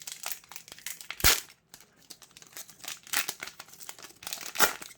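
Foil Yu-Gi-Oh booster pack wrapper crinkling as it is handled, in irregular rustles with sharper crackles about a second in and near the end.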